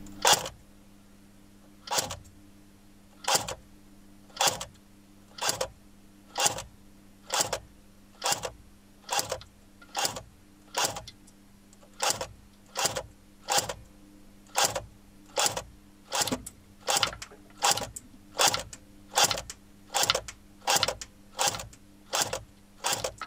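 Airsoft FN P90 replica firing single shots in semi-automatic, more than twenty sharp shots at about one a second, over a steady low hum.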